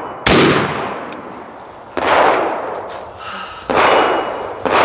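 Four rifle shots from a Rock River Arms CAR A2 carbine, an AR-15 pattern rifle, fired one at a time about one to two seconds apart, each trailing off in an echo.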